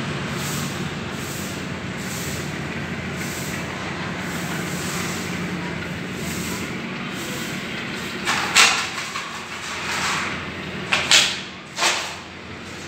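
Passenger train coaches rolling steadily past on the track with a continuous rumble. In the last third, several short, loud bursts of hiss cut in.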